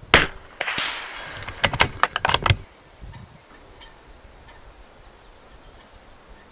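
.22 rimfire bolt-action rifle firing one shot just after the start. About half a second later comes a louder, longer burst that rings on, and around two seconds in a quick run of sharp metallic clicks.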